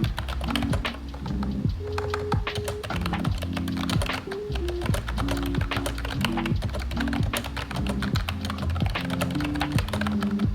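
Typing on a retro typewriter-style wireless keyboard: a rapid, irregular run of key clicks over background music.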